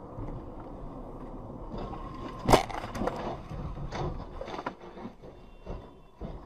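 Car crash heard from inside a following car over steady road noise: one loud bang about two and a half seconds in, then a string of smaller knocks and clatters as the crashed car rolls onto its roof and debris scatters across the road.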